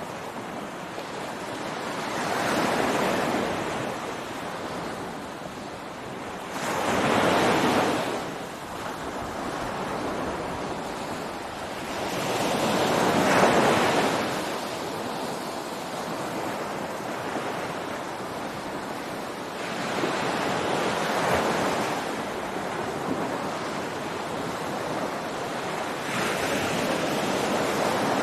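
Ocean surf: waves breaking and washing up a beach, the rush swelling and easing about every five to seven seconds, the loudest breaks coming about seven and thirteen seconds in.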